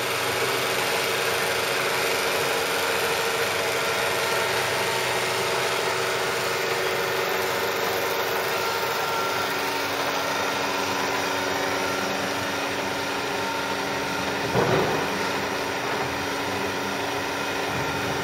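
Butler Elgamill CSN10 bed-type milling machine running a program under its Heidenhain control, spindle turning and axes feeding: a steady mechanical hum with several steady tones. A short louder noise comes about fifteen seconds in.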